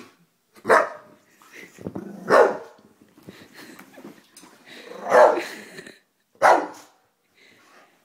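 English bulldog barking four times, a second or two apart, with low growling between the barks: fearful, defensive barking at someone chewing gum.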